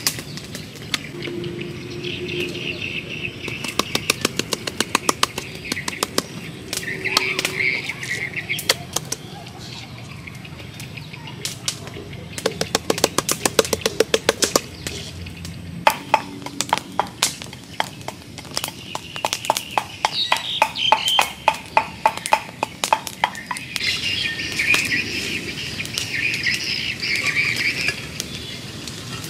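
Hands patting, slapping and rubbing pepper seasoning into raw beef steaks on a wooden cutting board, in runs of quick sharp pats, with birds chirping in the background.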